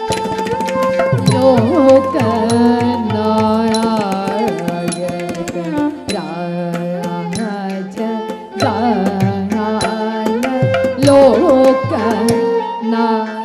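Live Carnatic music for a Bharatanatyam varnam: a voice sings gliding, ornamented melodic phrases over a steady drone, with a steady run of drum strokes.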